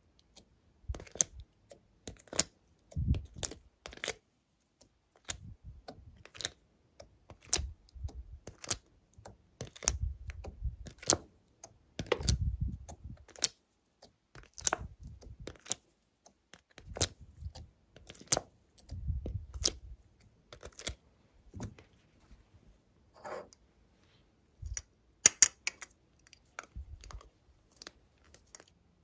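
Glossy slime being squished and worked by hand, making irregular sharp clicks and pops, some with a soft low thud underneath.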